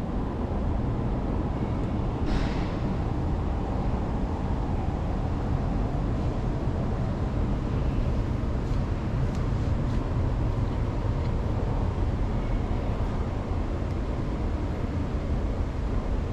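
Underground metro platform ambience: a steady low rumble throughout, with a short hiss about two seconds in.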